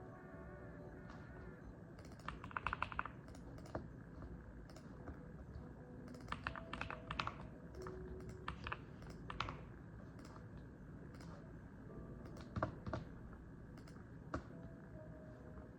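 Typing on a mechanical keyboard: keystrokes come in short bursts with pauses between them.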